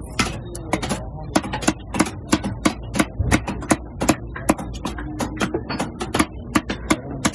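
Heavy fish-cutting knife chopping a strip of fish flesh into chunks on a wooden log chopping block: a steady run of sharp chops, about three a second.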